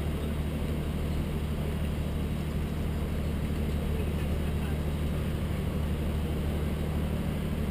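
A steady low mechanical hum with an even background hiss, unchanging throughout.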